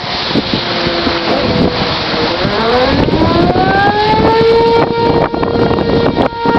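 Outdoor warning siren winding up: a tone rises steeply in pitch about two seconds in, then holds a steady wail, over loud wind and rain noise.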